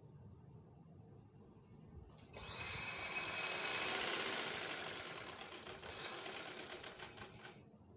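Sewing machine stitching through fabric: it starts up about two seconds in, runs fast and steady, then slows so that separate stitches can be heard before it stops shortly before the end.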